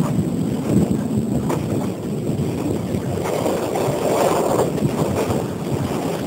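A passenger train carriage on the move, with a steady rumble of its running gear and wind buffeting the microphone at the open window.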